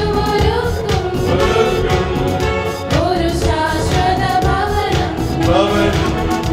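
A mixed church choir of men and women singing a hymn together, accompanied by electronic keyboard and acoustic guitar.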